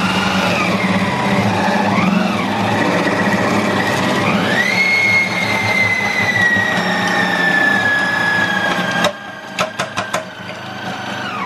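Compact Cook Elite kitchen robot's motor spinning its grating disc as cabbage and leek are pressed down the feed tube: a loud whine whose pitch wavers with the load, climbs about four and a half seconds in, then slowly falls, and cuts off about nine seconds in. A few sharp plastic clicks follow as the pusher is lifted out.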